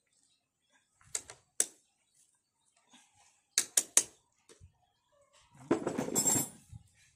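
Metal clinks and clicks of hand tools on the parts of a Hyundai Grand i10 petrol engine being assembled: scattered sharp clicks, then about a second of rattling metal near the end.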